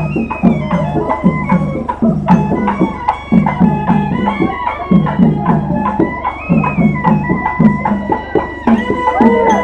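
Traditional procession music: drums beating a steady rhythm under a wind instrument playing a melody that rises and falls.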